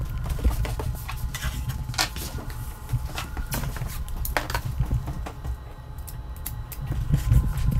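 Yellow FrogTape masking tape being pulled off the roll and pressed down along the foot of wooden cabinets on a hardwood floor: scattered sharp crackles and clicks over a steady low rumble.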